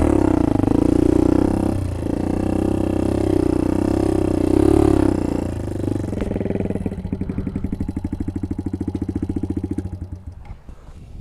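Small motorbike engine running under throttle, its pitch wavering, then dropping about six seconds in to an evenly pulsing idle that fades near the end.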